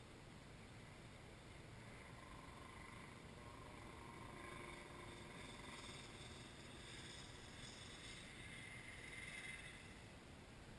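Faint, distant kart engine running elsewhere on the circuit, its whine swelling a little and fading away near the end, over low background hiss.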